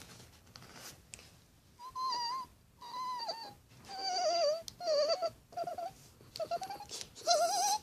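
A child's voice making a string of short, high, squeaky wavering cries, like whimpering, starting about two seconds in and coming more often toward the end.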